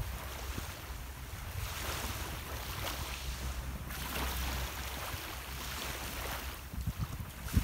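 Small waves washing in and out on a sand-and-pebble shore, the hiss rising and falling every couple of seconds, over a steady low rumble of wind on the microphone.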